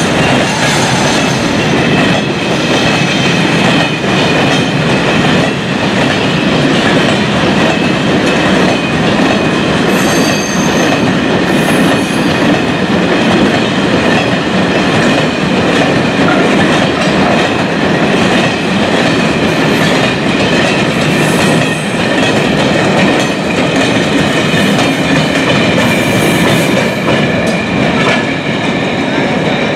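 Freight train of covered sliding-wall wagons rolling past close by: a steady loud rumble of wheels on rail with clatter from the wheels. A thin, high squeal from the wheels runs over it.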